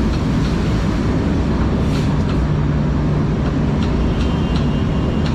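Steady, loud rain noise, with a low hum for about a second and a half midway and a few short sharp ticks near the end.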